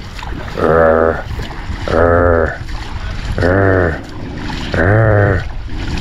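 A chained, angry dog barking over and over in long, deep barks, about one every second and a half, each falling away at its end.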